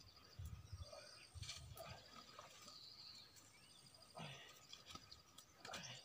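Near silence: faint outdoor ambience with a few soft low knocks and rustles in the first two seconds.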